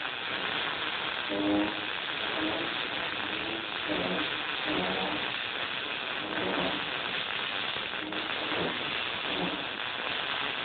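MIG welding arc in short-circuit transfer, .030 ER70S-6 wire on mild steel, crackling steadily while the wire feed speed is turned up through its smooth range toward the point where it starts popping. A hum with a few tones comes and goes underneath.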